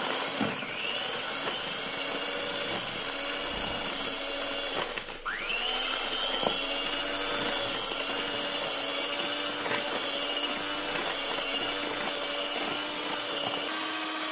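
Electric hand mixer running steadily, its beaters creaming ghee and powdered sugar for a cake batter, with a few faint clicks. About five seconds in the motor cuts out briefly, then whines back up to speed.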